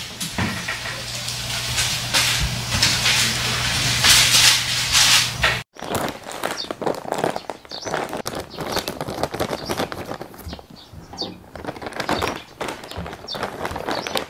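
Sausages and a steak sizzling on a foil-lined grill: a steady hiss with a low hum beneath. About six seconds in it stops abruptly and gives way to a plastic bag of food crinkling and rustling as it is handled.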